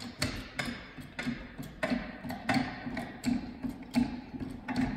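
Cheap hydraulic floor jack being pumped by its handle to lift a light aircraft off its main gear: a knock and a short creak with every stroke, repeating at a steady rhythm.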